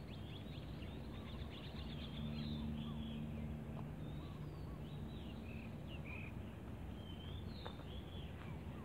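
Birds chirping, with many short calls, over a faint steady outdoor background, and a low hum that swells for a couple of seconds about two seconds in.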